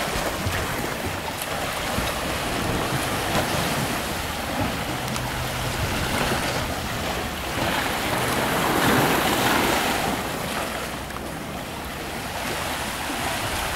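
Sea water washing and lapping, swelling and easing, with wind buffeting the microphone.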